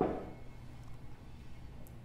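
A single knock of a hand tool set down on the wooden workbench, with a short ringing tail, followed by a low steady room hum.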